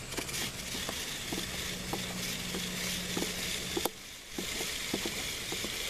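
Stiff bristles of a three-sided chain brush scrubbing a kerosene-soaked motorcycle chain as the chain is turned backward through it, with small irregular clicks along the way and a short pause about four seconds in.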